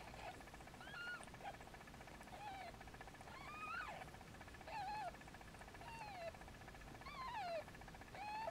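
Newborn kitten mewing: about eight faint, short, high-pitched cries, one every second or so, each rising then falling in pitch.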